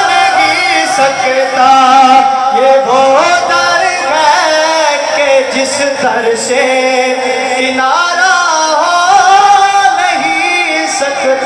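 A man singing an Urdu naat into a handheld microphone: long held notes that bend and waver in pitch, with ornamented runs between them.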